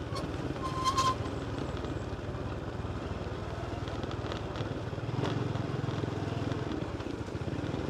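Small motorcycle engine running steadily at low road speed, an even low putter.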